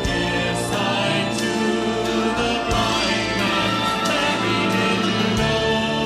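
Live gospel-style music: sustained vocal and instrumental chords with regular cymbal strikes.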